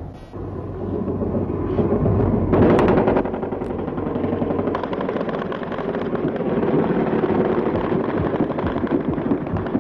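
Rapid automatic anti-aircraft gunfire in fast, dense bursts over a steady low rumble, growing heavy about two and a half seconds in, as the guns fire at an attacking jet.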